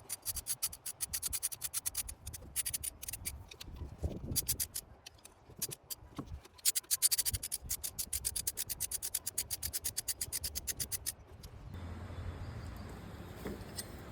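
Hand ratchet clicking quickly in runs with short breaks while bolts are run down on the throttle body, stopping near the end. A steady low hum follows.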